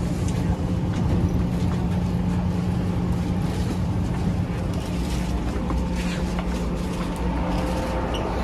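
Steady hum inside a Taipei Metro C341 train car, with a constant low drone and some fainter steady tones joining about halfway through, under the chatter of passengers.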